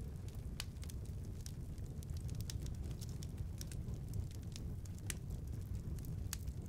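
Open wood fire crackling: scattered sharp pops over a steady low rumble.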